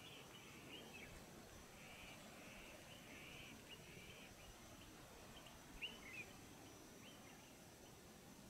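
Faint natural ambience with birds calling: a run of short buzzy notes, then a few sharp chirps about two thirds of the way in, over a low steady hiss.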